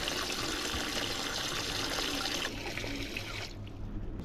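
Water running from a tap into a plastic pigeon drinker and filling it. The flow eases about two and a half seconds in and stops about a second later as the tap is turned off.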